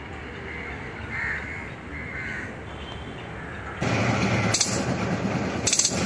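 Crows cawing several times over a steady low background hum. About four seconds in, the sound changes abruptly to a much louder, rough rumbling noise with a few sharp crackles.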